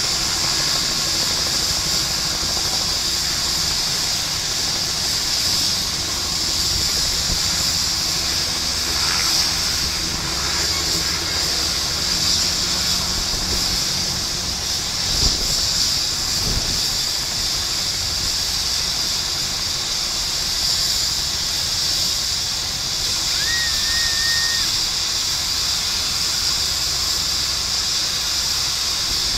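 Twin turbine engines of an AgustaWestland A109 helicopter running at ground idle with the main rotor turning: a steady high-pitched turbine whine and hiss.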